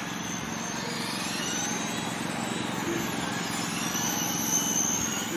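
Radio-controlled dirt oval cars racing, their motors making several high-pitched whines that slowly rise and fall in pitch as the cars come round the track.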